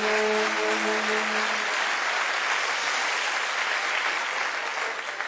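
Audience applauding, with a saxophone group's held chord stopping about a second and a half in.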